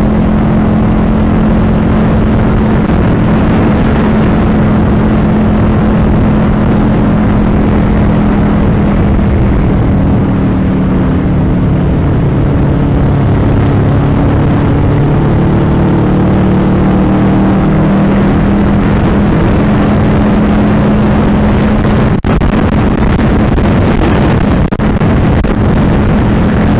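Motorcycle engine running steadily while riding, with loud wind noise on the microphone; the engine's pitch drops in the middle and climbs back as the bike slows and speeds up again.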